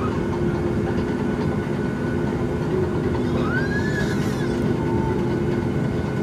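Cabin noise inside a Boeing 737 MAX 8: a steady rumble with the low hum of its CFM LEAP-1B engines. A little past halfway, a baby gives one high squeal that rises and then falls.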